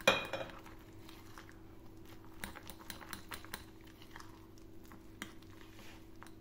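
A spoon stirring thick cake batter with grated carrot and walnuts in a glass bowl: soft stirring with many light clicks of the spoon against the glass, and one sharper clink just after the start.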